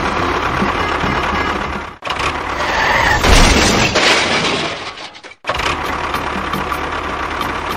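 Small motor running steadily on the mini model construction vehicles, heard across several cut-together clips, with a loud noisy stretch about three seconds in and a brief drop-out a little after five seconds.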